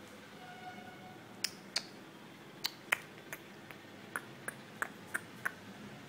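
A dog jumping about on a hard floor, making about ten sharp, irregular clicks over a few seconds.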